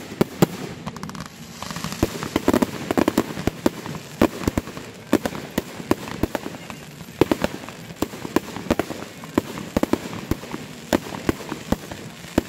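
Consumer aerial fireworks bursting overhead: a rapid, irregular string of sharp bangs and pops, several a second.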